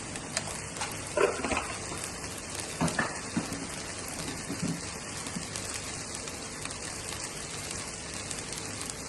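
Steady sizzling hiss of harees cooking in a pan over low heat. Two short pitched sounds come about one and three seconds in.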